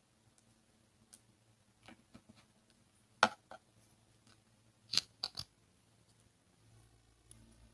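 Close-up handling noises: a few sharp crackles and clicks, the loudest about three seconds in and a quick group of three about five seconds in.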